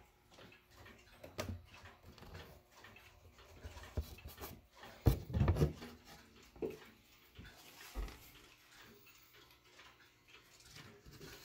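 Thin wooden back panel of a grandfather clock case being unlatched and lifted off: scattered knocks and scrapes of wood, the loudest cluster about halfway through.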